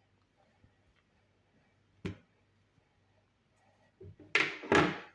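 Kitchen knocks and clatter from cutting and handling fruit: a single sharp tap about two seconds in, then a short cluster of louder knocks near the end.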